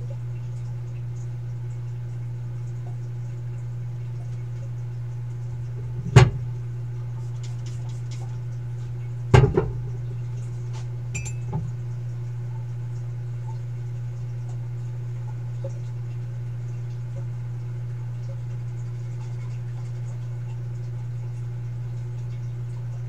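Steady low hum of a K40 laser cutter running, with two sharp knocks about six and nine and a half seconds in.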